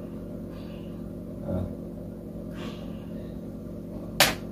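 Steady low hum of room noise, with one short, sharp noise about four seconds in.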